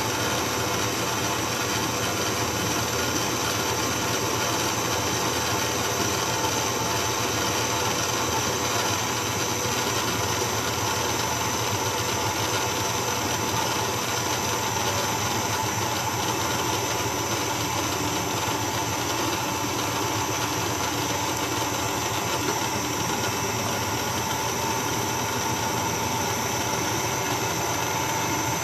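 Stand mixer running steadily at low speed, its whisk beating egg whites while hot sugar syrup is streamed into the bowl for Italian meringue.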